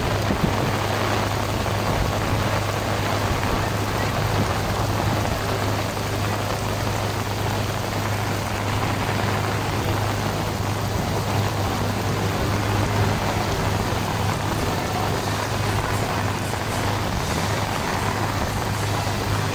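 Heavy rain falling in a storm, a steady, even hiss with a constant low hum underneath.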